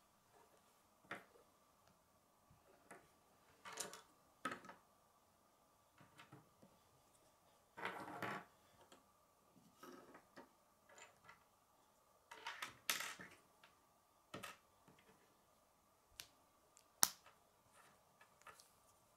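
Plastic K'nex rods and connectors being handled and pushed together: scattered light clicks and brief plastic rattles, with one sharp snap near the end.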